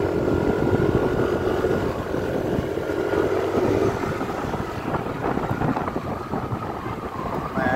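A moving vehicle's engine and road noise, with wind on the microphone. A steady engine drone holds for about four seconds, then eases into a rougher running noise.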